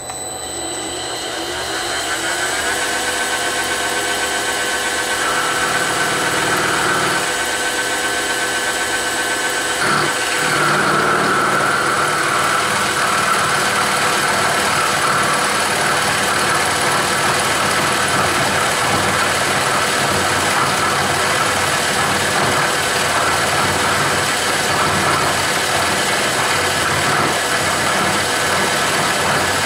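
Bridgeport milling machine spindle, its three-phase motor driven by a VFD, spinning up over about two seconds in high gear at around 1100 RPM, then running steadily with an end mill in the chuck. About ten seconds in the running sound turns noisier and rougher.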